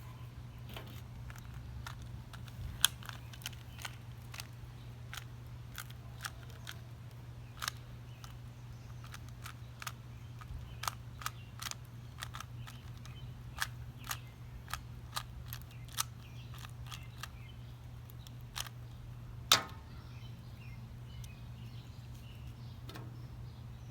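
Rubik's Cube being twisted: irregular sharp clicks, one or two a second, with two louder snaps, about three seconds in and near the end, over a steady low hum.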